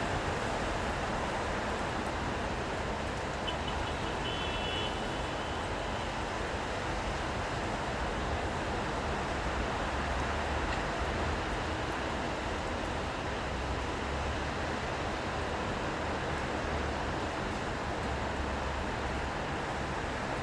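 Steady city street ambience in rain: an even wash of rain and road traffic, with low rumbles of passing vehicles and a brief faint high tone about four seconds in.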